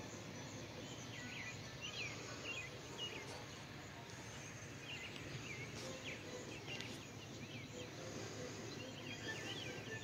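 Small birds chirping in short runs of quick calls, in three clusters, over a steady outdoor background hiss.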